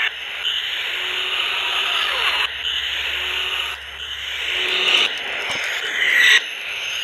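Hess 2010 toy jet playing its electronic jet-flight sound effect through its small built-in speaker as it is swooped through the air: a hissy engine roar that swells and dips, then drops back about six seconds in.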